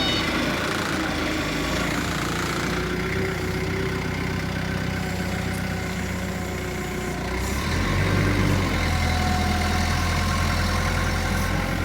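Heavy vehicle engine idling steadily; about eight seconds in its note drops and it grows louder.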